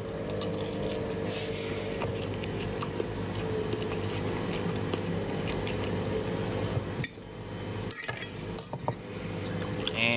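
Cutlery clicking and scraping on a dinner plate as a knife and fork work at the food, over a steady low hum.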